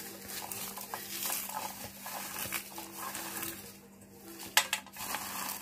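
Roasted peanuts rubbed by hand inside a cloth to loosen their skins: a soft rustling and crunching with scattered small clicks, and a short cluster of sharper clicks about four and a half seconds in.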